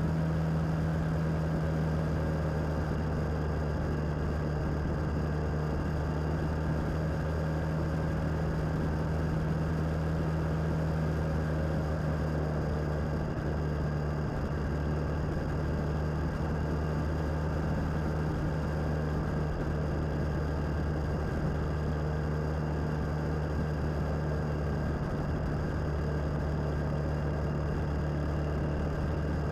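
Suzuki DL650 V-Strom's V-twin engine running at an even cruise, with wind and road noise over it.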